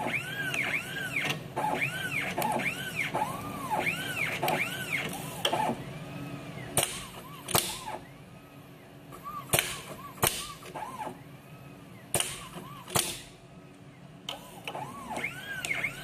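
Automatic wire stripping and bending machine running its cycle: its motors whine in quick sweeps that rise and fall in pitch, one move after another. Three pairs of sharp clicks come in the second half.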